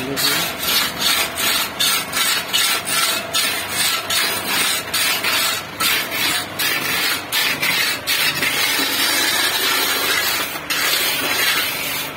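Steel trowel scraping and smoothing wet concrete along the top of a fence-pillar mould, in quick repeated strokes about three a second that run together into a longer scrape near the end.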